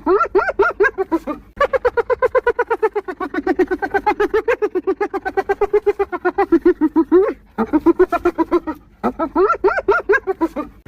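Spotted hyena laughing: a rapid cackle of short pitched notes, about eight a second, in long bouts with a few brief pauses.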